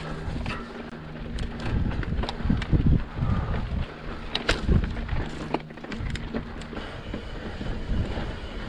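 Mountain bike riding over a rocky trail: repeated thumps, knocks and rattles as it rolls over rock, over a steady rushing noise. A low steady hum runs under it and stops about two-thirds of the way through.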